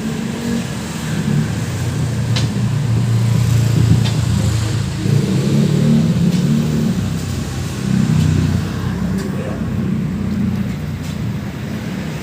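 A heavy engine running with uneven load, its low rumble swelling and easing, with a few faint clicks over it.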